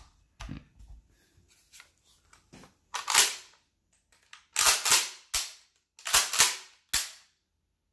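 Kel-Tec KSG pump-action shotgun being cycled after reassembly: the pump is racked several times, giving sharp metallic clacks in quick groups with a few lone clicks between.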